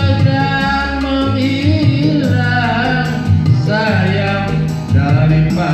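A man singing a pop ballad into a microphone through a PA, accompanied by electric keyboard with a steady bass line; the sung melody swells and falls across several phrases.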